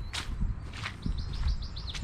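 A songbird singing a quick trill of about eight short, falling notes about a second in. Two crunching footsteps on brush come earlier, over a steady low rumble.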